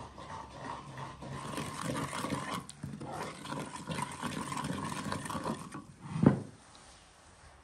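Metal spoon stirring and scraping a thick, oily spice mixture in a clay bowl, then a single sharp knock about six seconds in.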